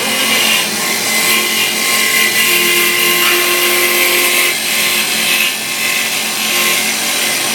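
CNC wood lathe running and cutting a wooden workpiece: a steady, loud whir and hiss with a few faint whining tones.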